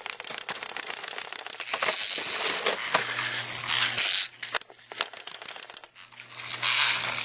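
Clockwork wind-up walking toys running: a quick, even clicking for the first second and a half, then a dense whirring rattle that drops away for a moment in the middle and comes back near the end.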